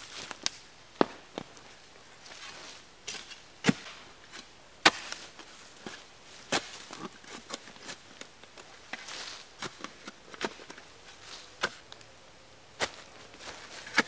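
Wooden planks knocking and clattering against each other as they are lifted and sorted from a pile: about ten irregular sharp wooden knocks, with dry leaves rustling underfoot between them.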